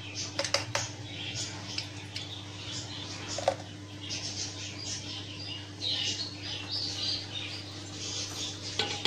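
Wet splashing and trickling as ground cotton seed paste is poured into a plastic mesh tea strainer and the milk drips through into a bowl, with a few small clicks near the start. A steady low hum runs underneath.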